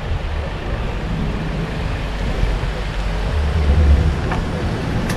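Low, steady rumble of road traffic mixed with wind buffeting the microphone, swelling briefly about three and a half seconds in.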